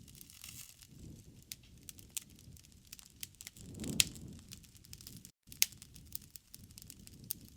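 Wood fire crackling, with irregular sharp pops and snaps over a low rustle of burning logs. A louder pop comes about four seconds in and another shortly after.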